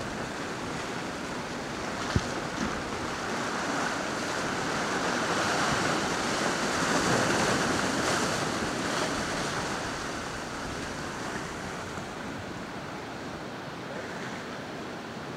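Choppy waves and wind on the microphone, with a motorboat speeding past whose engine and wake noise swell to a peak about midway and then fade. A single sharp knock about two seconds in.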